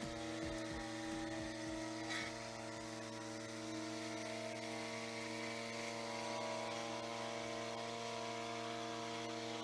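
An engine running steadily at an even speed, a constant drone with no change in pitch.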